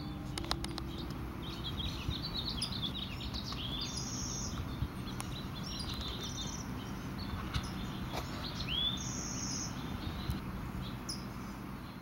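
Several birds chirping and trilling in short, high calls over a steady low outdoor rumble.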